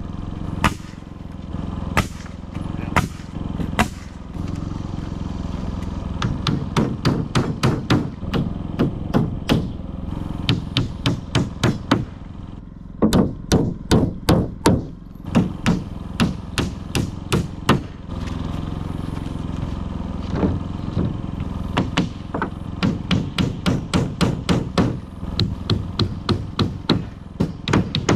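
Repeated hammer strikes on the shed's framing and panels, in quick runs of several blows a second with short pauses, over a steady low hum.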